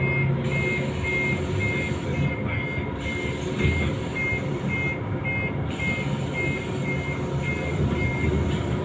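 An electronic beeper giving short high beeps, about two a second, over the steady low hum of a Scania Citywide CNG city bus standing at a stop.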